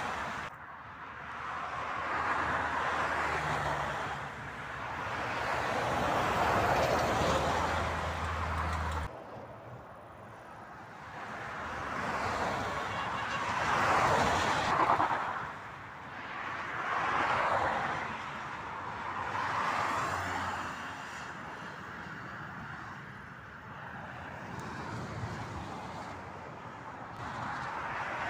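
Motorway traffic passing by: vehicles swell up and fade away one after another. A low steady hum under the first few passes stops suddenly about nine seconds in.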